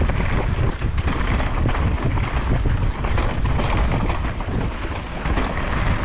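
Mountain bike descending a forest trail at speed: wind buffeting the microphone over a constant rattle and clatter of the bike and tyres on rough, greasy ground.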